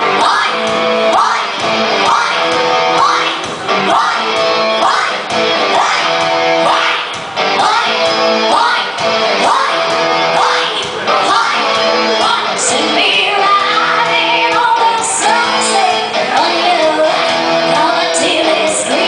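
Band music with guitar and a singing voice over a steady beat.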